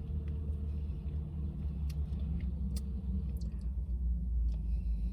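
Car engine idling: a steady low rumble, with a few light clicks on top.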